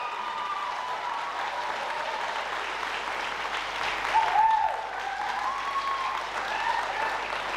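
Audience applauding steadily at the end of a stage act, with a brief cheer about four seconds in, the loudest moment.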